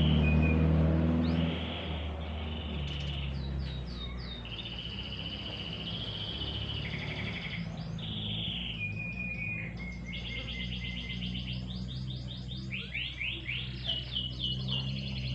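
Domestic canary singing: long rolling trills, held notes and runs of rapid rising and falling chirps. A low rumble underneath is loudest during the first second and a half, then settles to a steady hum.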